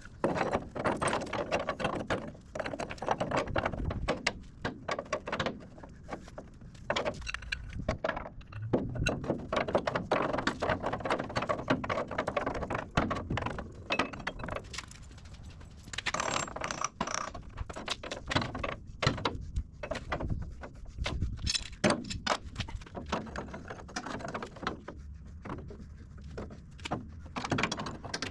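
Irregular clanks, clinks and rattles of metal parts and hand tools being handled and set down, many short knocks a second apart or closer, with no steady machine running.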